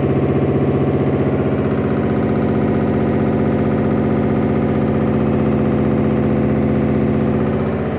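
Samsung WF106 front-loading washing machine in its spin cycle, making a loud, steady, harsh drone with a fast flutter. This is the abnormal spin noise of a faulty machine.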